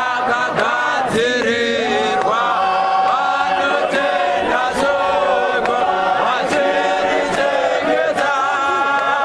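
Group of men singing a Shona church hymn unaccompanied, several voices at once in harmony with long held notes.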